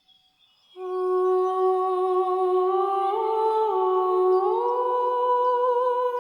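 A woman's voice humming a long sustained note, starting about a second in, stepping up in pitch about halfway through, dropping back, then stepping up again and holding.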